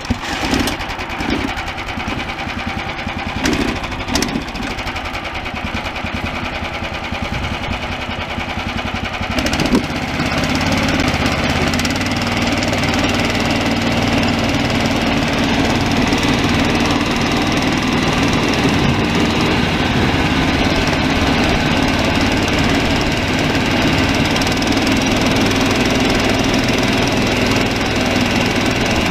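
Small gasoline engine of a Snowdog tracked snow machine running at low speed, then throttling up about a third of the way in to a louder, steady run as the machine pulls the sled along.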